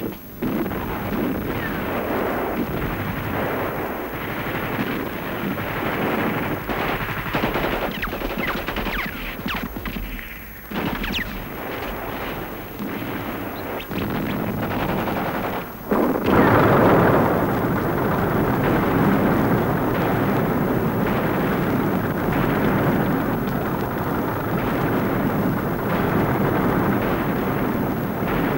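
Battle sound of dense, rapid gunfire and machine-gun fire. It briefly drops out about ten seconds in and again near sixteen seconds, then comes back louder and denser.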